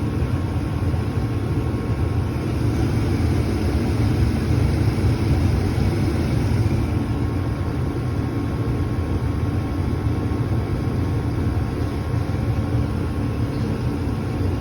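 28-year-old Carrier 80% gas furnace running, a steady low rumble with a faint steady hum above it that swells slightly about four to six seconds in.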